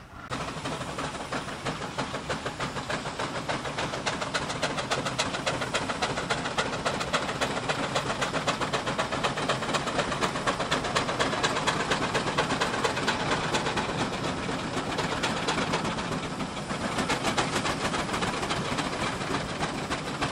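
Several steam traction engines working together, their exhaust beats overlapping into a dense, rapid chuffing with steam hiss, as they pull under heavy load.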